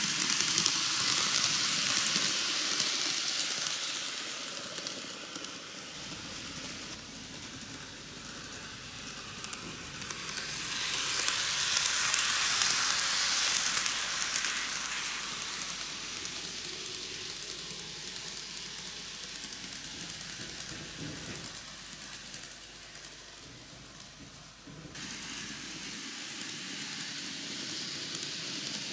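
N-gauge Microace Seibu 4000 series model train running on curved track: a steady hissing rattle of small wheels on the rails. It grows louder twice as the train passes close, near the start and again about twelve seconds in, and is fainter in between.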